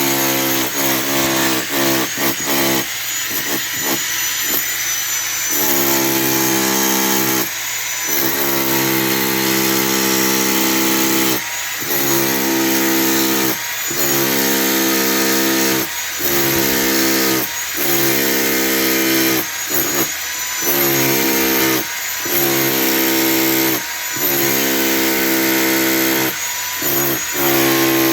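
Electric power drill running in repeated bursts of about one to two seconds with short pauses between, its pitch dipping slightly as each burst starts.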